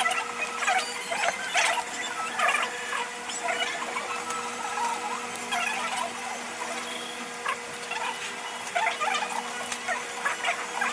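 Everyday work sounds played back at five times speed: a rapid stream of short high squeaks and clicks over a steady hum.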